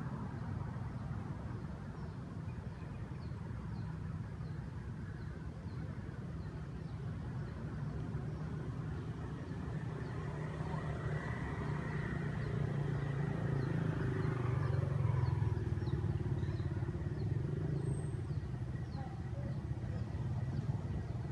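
Low rumble of a passing motor vehicle's engine, swelling to its loudest a little past the middle and easing slightly near the end, with faint high ticks over it.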